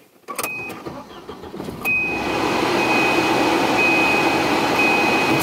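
1990 Volvo 240 DL's four-cylinder engine starting up, heard from inside the cabin: it catches about two seconds in and then runs steadily with the air-conditioning blower, and a thin high whine comes and goes on top.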